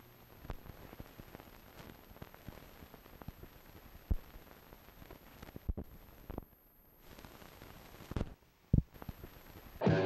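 Faint static: a low hiss with scattered clicks and pops, a few louder ones near the middle and the end. Rock music with guitar cuts in at the very end.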